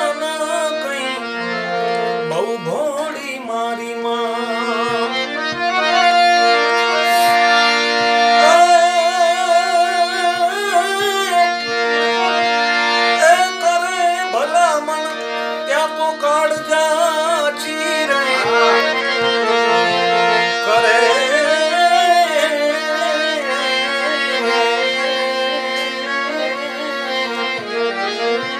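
Harmonium playing held chords and melody, with a man's voice singing long, wavering ornamented lines over it in a Gujarati biday geet (bride's farewell song).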